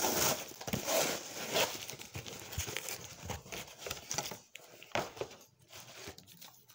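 Cardboard shipping box being torn open and handled: tearing and crinkling, loudest in the first two seconds, then scattered rustles and knocks that fade near the end.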